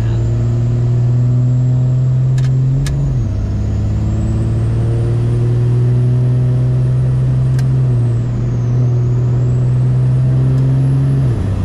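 5.9 Cummins inline-six turbo-diesel pulling under acceleration, heard from inside the truck's cab. Its pitch climbs steadily and falls sharply about three seconds in and again near the end as the transmission shifts up, with a faint high whistle rising and falling above it.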